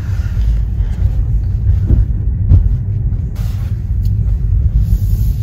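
Low, steady road and engine rumble heard from inside a moving car's cabin, with two short knocks about two seconds in.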